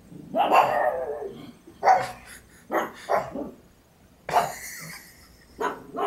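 Pug barking about six times at irregular intervals with a toy held in her mouth. The barks are alert barking at someone she thinks is at the door.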